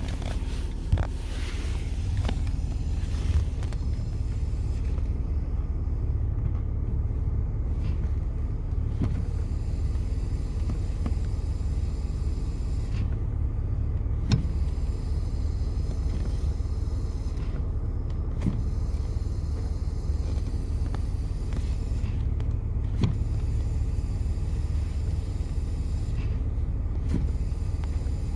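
BMW E46 engine idling steadily, with a faint high hiss that cuts out and comes back several times: air being drawn in through a vacuum leak at the brake booster. A few short clicks are heard along the way.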